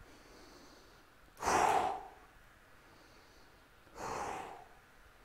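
A man breathing out hard twice during a resistance-band exercise, about a second and a half in and again about four seconds in; the first breath is the louder.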